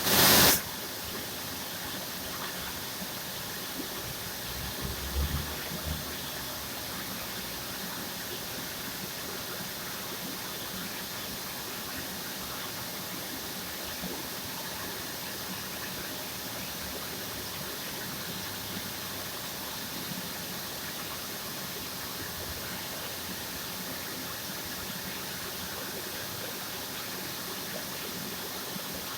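Circular knitting machine running with a steady, even whir. There is a short loud burst right at the start and a few low thuds about five seconds in.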